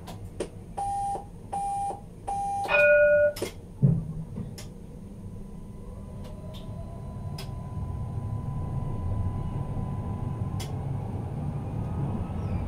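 Tram cab signals: three short beeps, then a louder falling three-note chime, and a thump about four seconds in. From about six seconds the tram's traction motors start with a slowly rising whine as the tram pulls away, and the rolling rumble grows.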